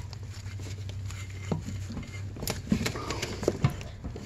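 Scattered small clicks, taps and scrapes of gloved hands working a choke cable into a two-stroke snowmobile carburetor, over a steady low hum.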